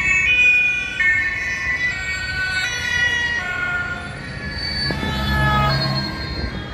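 Two-tone emergency siren (Martinshorn) of police vehicles driving past, its pitch stepping back and forth between two notes; a vehicle engine passes close about five seconds in.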